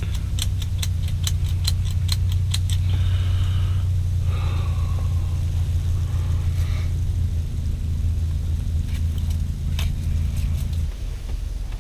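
Metal hand tally counter clicking, about three quick clicks a second for the first three seconds, then a couple more near the end, over a steady low rumble that drops away shortly before the end.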